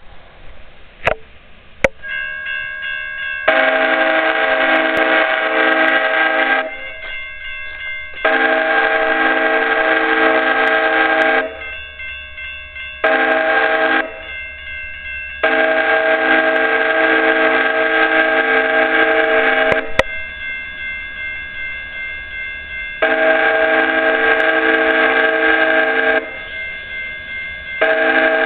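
Amtrak Talgo passenger train's horn sounding the grade-crossing signal as the train approaches: long, long, short, long, then two more long blasts. A fainter horn tone carries on between the blasts.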